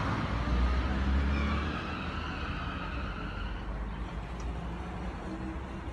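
Street traffic: a car passes close by with a low engine and tyre rumble that is loudest in the first two seconds, then eases into a steady traffic hum.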